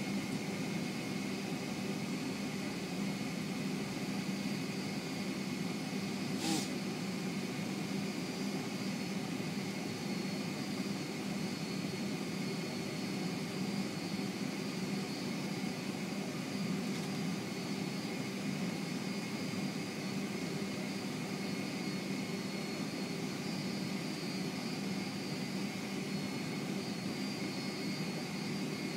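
Boeing 757-300's jet engines at taxi power, heard from inside the passenger cabin: a steady rumble with a steady high whine over it. A brief click about six and a half seconds in.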